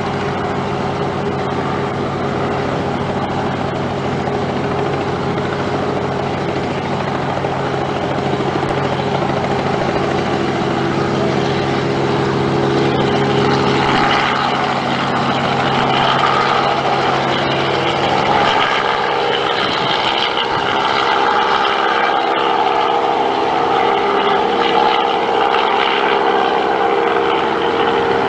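Robinson R44 helicopter's six-cylinder Lycoming piston engine and rotors running, sounding a blend of steady tones that the uploader hears as a rough A major chord. As it lifts and flies overhead, the low tones fade about two-thirds of the way through and the higher tones grow louder.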